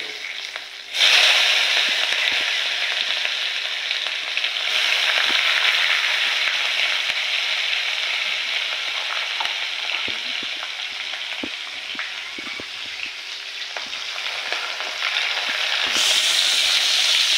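Chopped onions going into hot oil in a karahi and sizzling loudly at once, about a second in, then frying with a steady sizzle and the scattered clicks of stirring. The sizzle rises again near the end.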